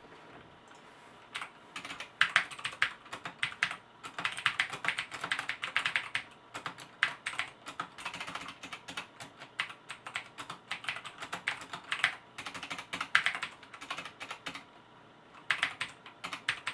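Typing on a Cooler Master Quickfire TK mechanical keyboard with Cherry MX Blue switches: rapid runs of sharp, clicky keystrokes, with a short pause near the end.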